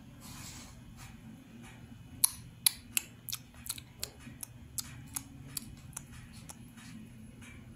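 Sharp, irregular clicks and taps, about a dozen of them from about two seconds in, as a puppy scrambles at a plastic stool on a tiled floor: claws and teeth on plastic and tile. A steady low hum lies underneath.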